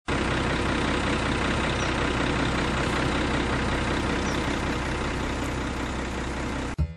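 A large engine idling steadily, cutting off abruptly near the end.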